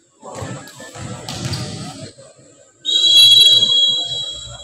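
Referee's whistle blown once, a steady shrill blast of about a second and a half starting about three seconds in, signalling the next serve in a volleyball match. Before it, voices and general hall noise.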